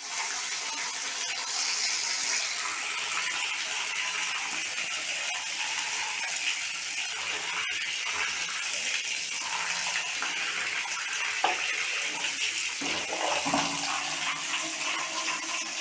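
Tap water running steadily and splashing over a plastic washing-machine cover as it is rinsed clean.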